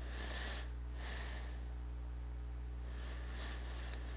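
Steady low hum with three soft breaths close to the microphone: one at the start, one about a second in, and one near the end.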